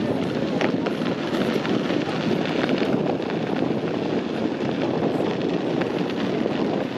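Fireworks display going off at a distance: a steady low mass of noise with a few faint sharp pops and crackles scattered through it.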